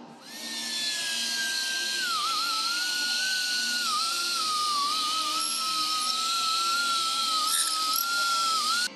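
High-speed power tool running with a strong whine, its pitch sagging and wavering several times over dense hissing noise. It starts and cuts off abruptly.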